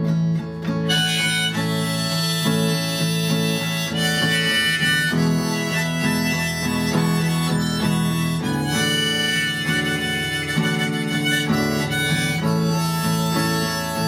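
Harmonica playing an instrumental break over acoustic guitar accompaniment in a blues/folk song. The harmonica comes in about a second in.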